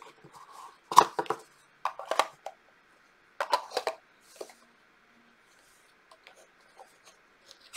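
Hard plastic clacks and clicks of a Portable Painter Classic travel watercolor palette being handled and pressed shut: several sharp knocks in the first four seconds, then a few faint light taps.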